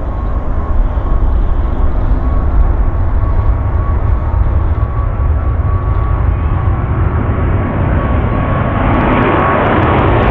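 Jet airliner engines running, a loud steady rumble with a thin steady whine, growing louder and hissier near the end.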